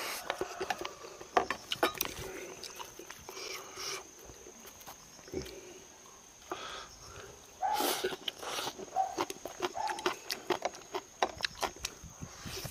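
Close-miked eating sounds: chewing and smacking food, with sharp clicks and brief slurps.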